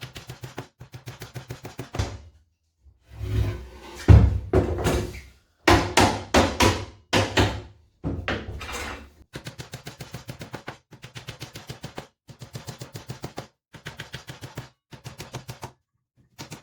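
Hammer driving 2-inch galvanized nails into the wooden sides of a beehive brood chamber. Runs of quick light taps are broken by a stretch of heavier blows about a third of the way in.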